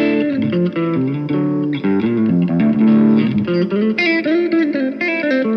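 Electric guitar played through a Vox AC15 C1 valve amp with the master volume full, gain low and Tone Cut off, a Nobels pedal switched in at no gain for an edge-of-clean tone: a passage of single notes and chords.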